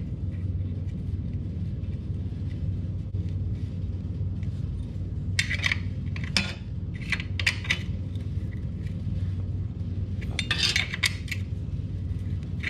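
A metal wrench clicking and clinking against the oil-pan drain plug of a 2002 Suzuki GSX-R 600 in three short bursts as the plug is tightened, over a steady low hum. The plug is not getting tight: the pan threads are damaged.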